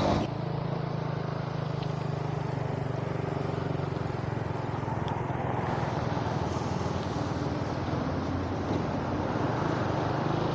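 Motorcycle engine running steadily while riding, with a low hum under a steady rush of wind and road noise on the microphone.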